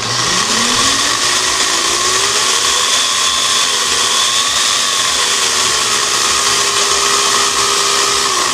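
Electric angle grinder driving a chainsaw adapter's chain around an 11.5-inch bar, running free with no cut, on a supply voltage turned down below normal. The motor speeds up over the first three seconds with a rising whine, runs steadily, then is switched off near the end and winds down.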